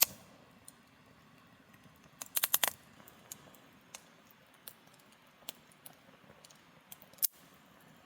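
Small clicks and clinks of objects being handled: a sharp click at the start, a quick run of about five clicks around two and a half seconds in, scattered light taps, and another sharp click near the end.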